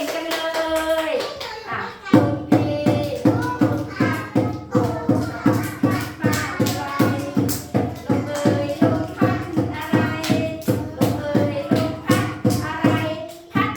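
A children's song sung over a steady beat of hand claps, about three a second, which starts about two seconds in after a held sung note.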